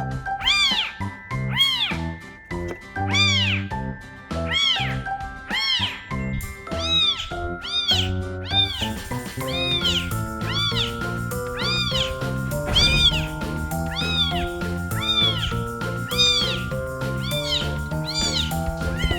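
A kitten meowing over and over, short high-pitched meows that rise and fall, about one or two a second, over background music with steady plucked or mallet-like notes.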